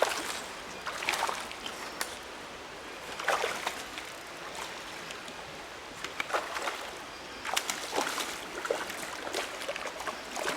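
A creek running over shoals, a steady rush of water, with short irregular bursts of splashing at the surface every second or few seconds.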